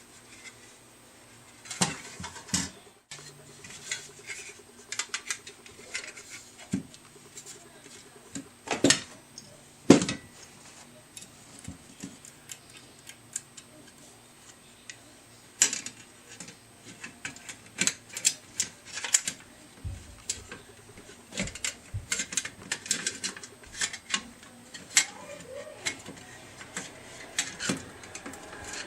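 Steel fan blades and small metal parts clinking and tapping as they are handled and fitted together, in scattered, irregular knocks, with a couple of sharper ones about nine and ten seconds in.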